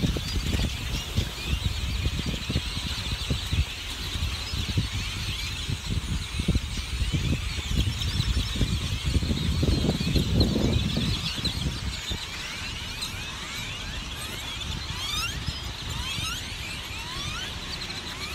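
A huge flock of grackles calling all at once: a dense din of many short, rising squeals. Low rumbling and fluttering runs through the first two-thirds, loudest about ten seconds in as part of the flock takes off, then eases.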